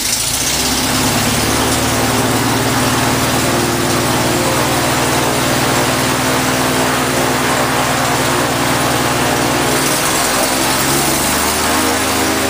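Air-cooled Volkswagen flat-four aircraft conversion engine running steadily and turning its propeller, having just caught on a hand-prop start. Its note shifts slightly about ten seconds in.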